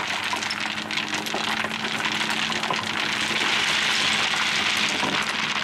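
Washed stone pouring out of an excavator bucket, a dense clatter of many small stones landing on a stone bed, over the steady running of the excavator's engine.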